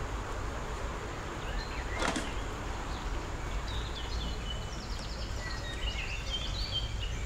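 Steady low background noise with a single knock about two seconds in, then a run of short, high chirps from about four seconds on.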